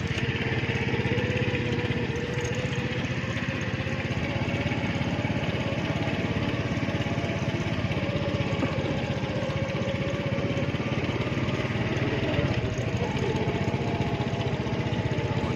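A small engine running steadily, with an even pulsing throb and a held whine that drifts slightly in pitch.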